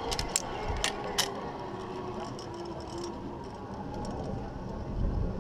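A few sharp metallic clicks and clinks in the first second or so as carabiners and a zipline trolley are handled on the steel cable, then a steady background with wind buffeting the microphone.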